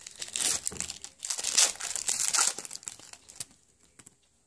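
Foil wrapper of a baseball card pack crinkling and tearing as the pack is opened by hand, a dense crackle that dies away about three and a half seconds in.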